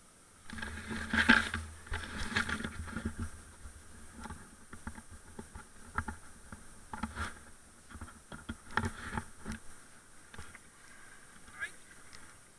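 Plastic kayak bumping and scraping against riverbank branches and roots, with paddle knocks and water splashes in irregular clusters, the loudest about a second in.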